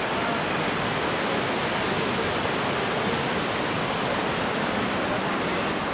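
River rapids rushing over rocks: a steady, even rush of white water.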